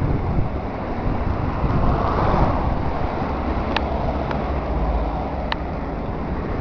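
Wind buffeting the camera microphone over the rumble of road traffic, swelling as a vehicle passes about two seconds in. Two brief high chirps sound near the middle.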